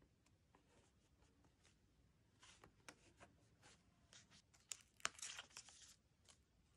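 Quiet paper crackling and small clicks as a paper sticker is peeled off its sheet and handled with tweezers. The sound is busiest in a burst of crinkling about five seconds in.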